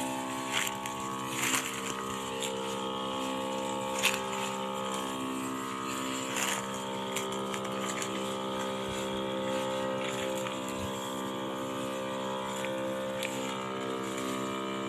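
Battery-powered knapsack sprayer's pump motor humming steadily while spraying plants, with a few light clicks on top.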